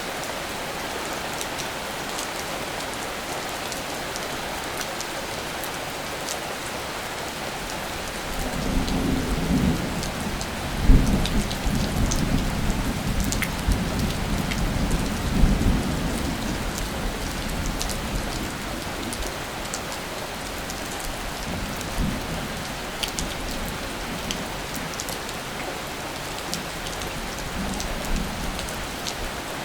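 Steady rain falling, with scattered sharp drops tapping close by. About eight seconds in, a low rumble of thunder builds, peaks twice and fades over about ten seconds, with a smaller rumble a few seconds later.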